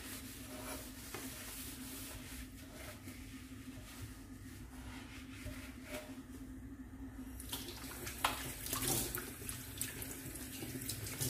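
A sponge rubbing over a chrome kitchen mixer tap, then, about seven and a half seconds in, the tap opened and water running into a stainless steel sink as hands rinse the tap's polish off.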